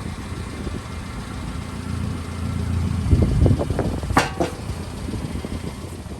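1995 Subaru Sambar mini truck's supercharged EN07 four-cylinder engine running, swelling louder around the middle, with a sharp knock that rings briefly about four seconds in.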